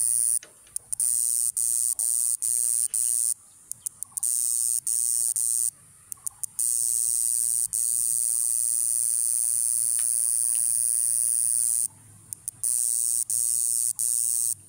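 Grass cicada singing: a high-pitched buzz that runs unbroken for several seconds at a time and, in between, breaks into quick stuttering pulses, several times.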